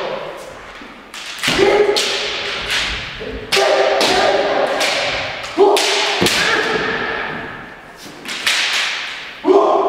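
Kendo practice: bamboo shinai striking and feet stamping on a wooden floor, with sharp cracks several times, mixed with long, drawn-out kiai shouts from several kendoka. The hall echoes after each strike.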